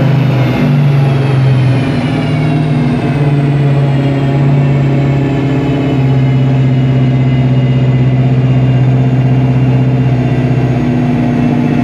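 Classic muscle car's engine running steadily on a chassis dynamometer as a dyno run winds down. It makes an even drone, while a faint high whine from the spinning drivetrain and rollers slowly falls in pitch.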